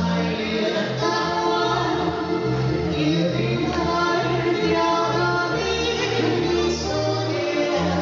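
Two men singing in harmony over live Alpine folk music played on accordion and harp, with a bass line stepping from note to note underneath.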